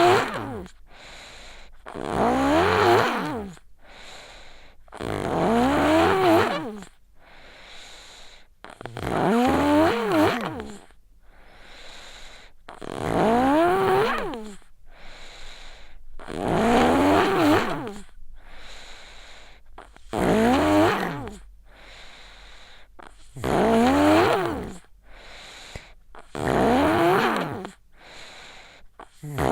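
A sick child snoring in sleep: a loud, rough, pitched snore on each breath, about every three and a half seconds, with quieter breathing between snores.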